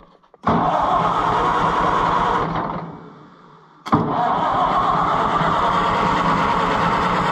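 Starter motor cranking the flooded engine of a Case VAC tractor in two long bursts, the second starting about four seconds in, without the engine catching. The flooding and a weakening battery are what keep it from starting.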